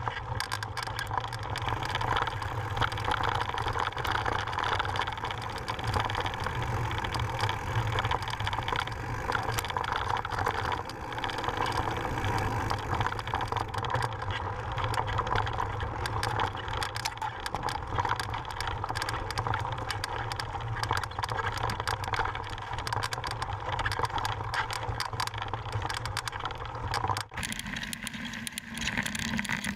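Mountain bike riding fast over a gravel and dirt trail, picked up by an action camera on the bike or rider: steady tyre-on-gravel noise with constant small rattles and knocks from the bike. The sound changes abruptly near the end.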